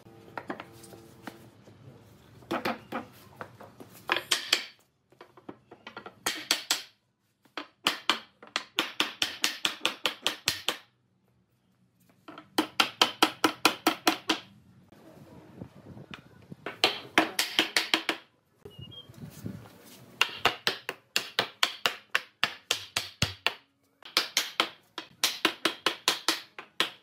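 Rapid runs of knocks on wood, about six a second, in bursts of one to three seconds with short pauses: a pine sofa frame's joints being tapped together.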